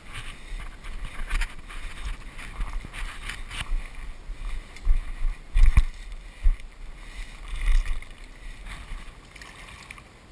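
Wind buffeting an action camera's microphone in uneven gusts, with a few knocks and rustles from handling the camera.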